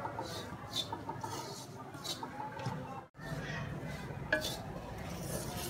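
Slotted wooden spatula stirring and scraping carom seeds as they dry-roast in a metal kadhai, a stroke about every half second, with a brief break about three seconds in.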